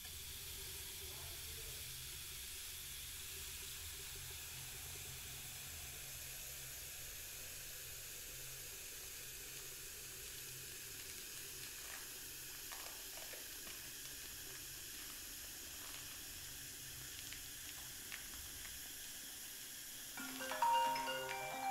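Steady low hiss with a faint hum, then about 20 seconds in a smartphone starts ringing with a bright marimba-style ringtone, much louder than the hiss.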